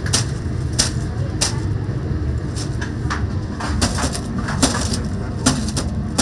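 About ten sharp clicks and knocks at uneven spacing over a steady low rumble.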